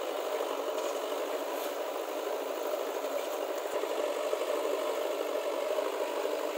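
Diesel engines of a JCB 3DX backhoe loader and a Mahindra tractor running steadily.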